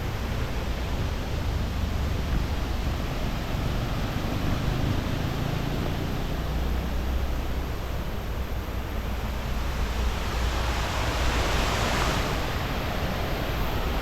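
Steady rushing roar of a large waterfall's falling water, with a deep rumble beneath, growing brighter and hissier for a couple of seconds near the end.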